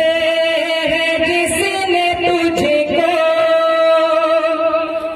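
A man singing a naat into a microphone over a PA in a slow, ornamented line of held notes. The longest note is held steady from a little past halfway until it fades just before the end.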